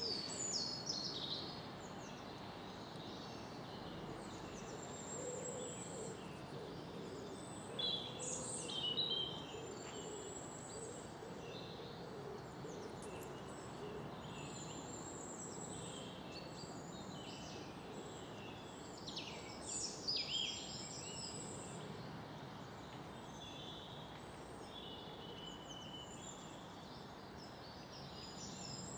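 Garden birds singing and chirping, in short high-pitched phrases that come in louder clusters a few times, over a steady outdoor background hiss.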